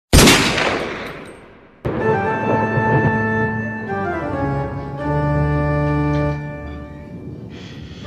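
A loud hit right at the start that fades away over about two seconds, then background music of held organ-like chords with a bass line coming in about five seconds in.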